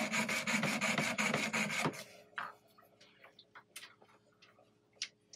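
Jeweler's saw with a size 3 blade cutting through a metal fork on a wooden bench pin, in quick, even back-and-forth strokes that stop about two seconds in. After that come only a few faint light clicks and one sharper tick near the end.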